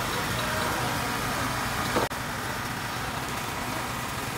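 Steady sizzling of okonomiyaki batter on a large hot teppan griddle, over a constant stall background noise, with a brief sharp click about two seconds in.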